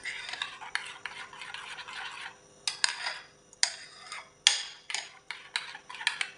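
Metal spoon stirring yogurt in a ceramic bowl. For the first couple of seconds it is continuous wet scraping; after that come separate sharp clinks and scrapes each time the spoon strikes the side of the bowl.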